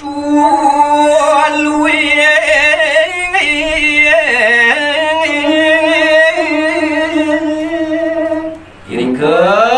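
A man singing a line of Balinese pupuh Sinom solo and unaccompanied, in long held notes with a wavering ornamented vibrato. The phrase ends nearly nine seconds in, and a new one begins with a rising slide.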